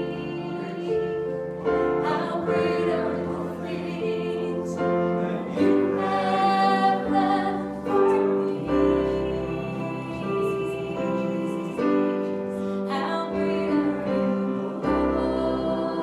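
Singing with instrumental accompaniment, held sustained notes: a worship song during a church service.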